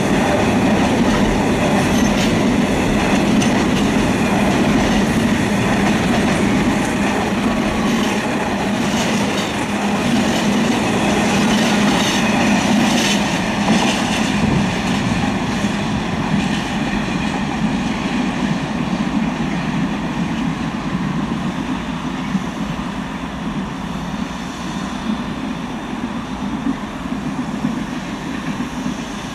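A freight train's wagons rolling past, wheels clattering steadily over the rails, easing off gradually toward the end. Wind is buffeting the microphone.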